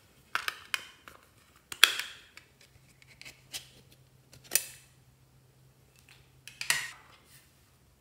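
Small hinged metal tins being handled and opened: a series of sharp clicks and clacks from lids and tin edges, the loudest about two seconds in.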